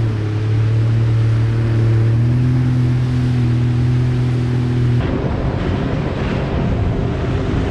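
Sea-Doo Fish Pro jet ski's engine running steadily at speed, a steady hum over rushing spray and wake. About five seconds in the sound changes suddenly to mostly rushing water and wind, with the engine fainter.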